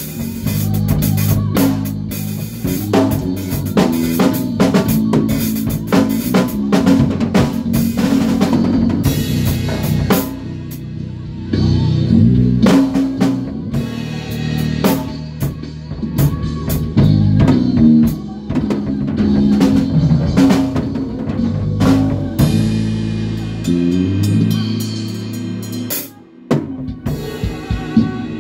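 Band rehearsing: a drum kit playing a busy beat with snare and bass drum under a bass guitar line, with a short break in the drums near the end.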